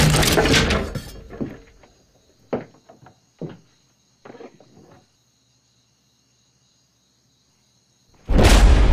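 Horror-trailer sound design: a loud hit that dies away over about a second, then a few dull knocks, then near silence, broken near the end by a sudden loud burst of static-like noise.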